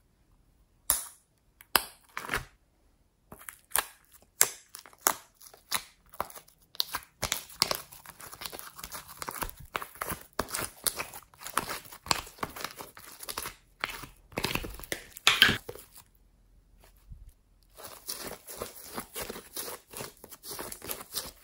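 Glittery slime being peeled out of a plastic mould and pulled apart by hand, making sticky crackling and tearing sounds. It starts as a string of separate pops, thickens into dense crackling, breaks off briefly about two-thirds through, then crackles again near the end.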